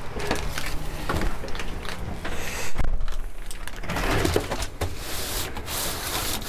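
Handling noise of a stiff Hypervent mattress underlay mat: rustling and rubbing as it is carried in and laid onto a plywood bed platform, with a few light knocks.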